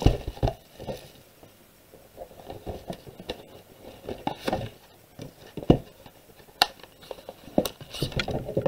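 Hands handling and opening a cardboard Pokémon card prerelease kit box: scattered taps and knocks as the box is turned, set down and its sleeve slid off, with a sharp knock right at the start and another about halfway. Near the end comes rustling as the cards and booster packs are pulled out.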